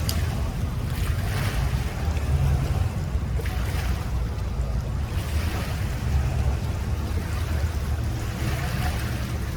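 A boat motor running steadily as a low rumble, with wind gusting on the microphone in swells every second or two.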